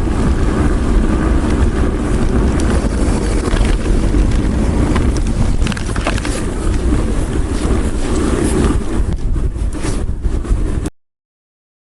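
Steady wind rumble buffeting the microphone of a mountain bike rider's camera on a downhill run, with riding noise underneath. It cuts off suddenly near the end.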